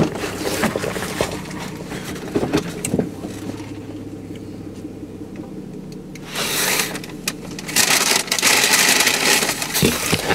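Rustling and scraping handling noise close to the microphone, loudest in the second half, as a hand works against the camera. Under it in the first half is a low steady hum that fades out about halfway.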